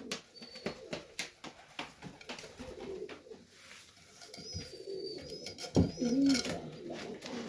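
Serbian Highflyer pigeons cooing inside their loft, the coos loudest about six seconds in, with thin high chirps a few times and scattered light clicks and taps.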